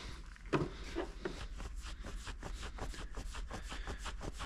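Rag wiping the metal parts of a 4L80E transmission front pump: quick back-and-forth rubbing strokes, several a second, over a steady low hum.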